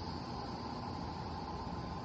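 Steady drone of a backyard insect chorus, with a low rumble beneath it.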